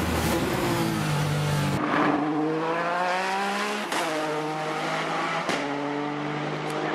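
Peugeot 208 T16 Pikes Peak race car's twin-turbo V6 running hard, its pitch rising and falling as it accelerates and changes gear. The sound jumps abruptly three times, shifting between the close engine and the car heard passing from the roadside.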